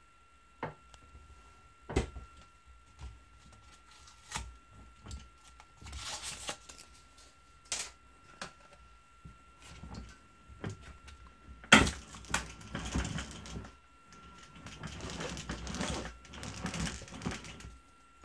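IKEA TUPPLUR roller blind being handled and pulled down: scattered sharp plastic clicks and knocks, the loudest about two-thirds of the way through, between stretches of fabric rustling as the blind comes off its roller.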